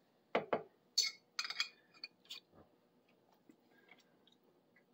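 Metal fork clinking against a glass jar of pickled jalapeño slices as slices are fished out, a handful of light clinks and taps in the first half, then near quiet.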